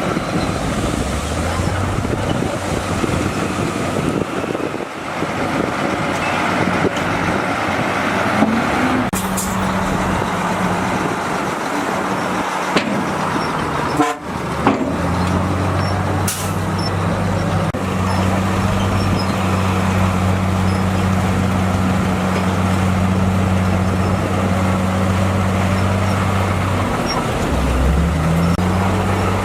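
Heavy diesel engine of earthmoving equipment running under load with a steady low drone. Its pitch steps up and down a few times, dipping about halfway through and coming back stronger, with a few sharp knocks.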